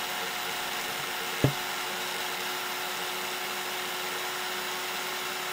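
SilverCrest SSM 180 A1 smoothie maker's motor running steadily with the jar empty and unloaded, a steady whirr with a steady tone over it. A single sharp click about one and a half seconds in.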